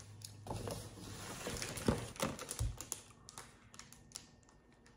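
Crinkling and rustling of a plastic snack bag and paper being handled: a quick run of small crackles and clicks, busiest in the first three seconds, then fainter.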